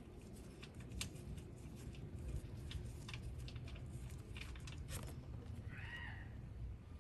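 Small clicks and ticks of a steel oil drain plug being spun out of a Honda Helix scooter's engine case by gloved fingers, with a last sharper click about five seconds in as the plug comes free. A brief chirp follows about a second later, over a low steady rumble.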